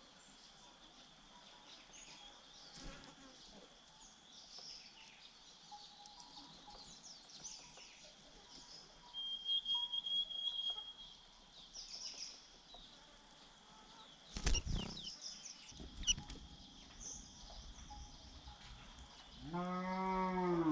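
Scattered thin, high chirps of white-eyes over a steady high hum. A sharp knock comes about two-thirds of the way through, and a low drawn-out call of about a second is heard near the end.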